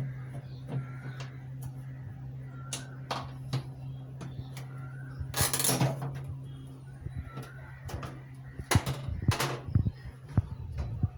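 Household knocks and clatter over a steady low hum, with a short rushing noise about five seconds in and a run of louder knocks near the end.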